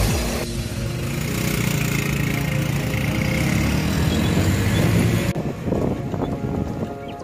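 Motorcycle engine running steadily while riding along a street, with road noise; the sound changes abruptly about half a second and again about five seconds in.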